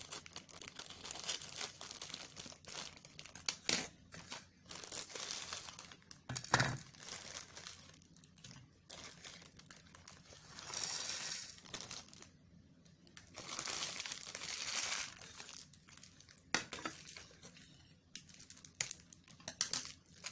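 Plastic instant-noodle packets (Indomie goreng) being cut open with scissors and handled: a string of crackles, rustles and crinkles from the wrapper and seasoning sachets, with two longer stretches of crinkling about ten and fourteen seconds in.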